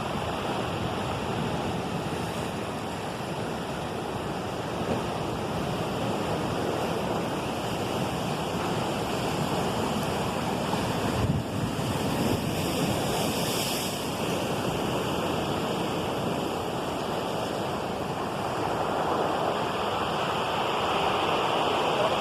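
Steady rushing of water, an even roar with no pauses.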